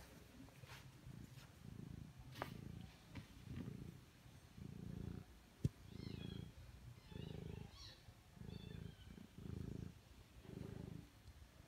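Mother cat purring, the purr swelling and fading with each breath about once a second. A single sharp click comes a little past halfway.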